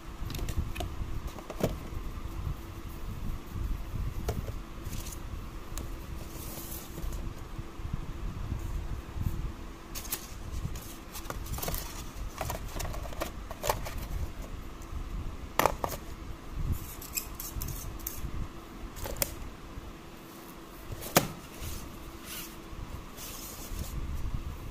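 Cardboard and paperboard packaging handled by hand: scattered sharp taps and knocks with short rustles and scrapes, two of the knocks louder than the rest in the second half. A faint steady hum runs underneath.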